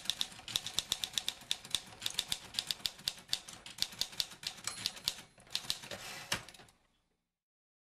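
Typewriter keys clacking in a quick, uneven run of sharp strikes, stopping about seven seconds in.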